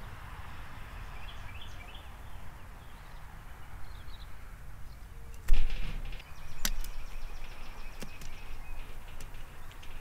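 Low wind rumble on an outdoor bird-feeder microphone with faint distant bird chirps, then about halfway through a sudden thump followed by a few sharp clicks and knocks at a metal platform feeder visited by blue jays.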